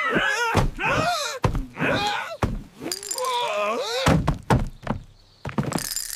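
Cartoon slapstick sounds: a run of thuds and knocks mixed with wavering, wobbling vocal-like wails. The loudest knocks come about four seconds in, and a bright shimmering hiss follows near the end.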